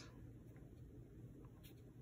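Near silence: low room hum, with one faint scratch of a paintbrush working acrylic paint on a paper plate about one and a half seconds in.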